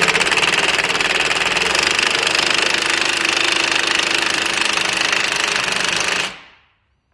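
An impact wrench hammering continuously on a bolt of a car's rear suspension, failing to break it loose; it stops about six seconds in.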